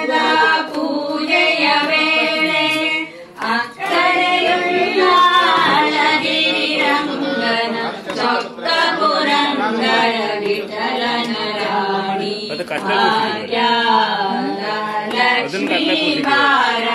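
A group of women singing a traditional song together, one melody carried steadily with a short break about three seconds in.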